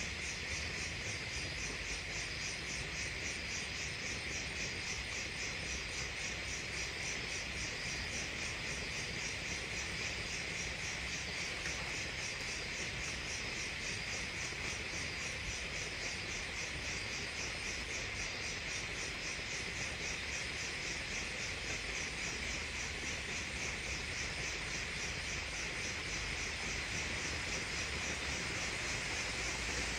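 Crickets chirping steadily: a high trill in regular, evenly spaced pulses over a constant hiss of other insects.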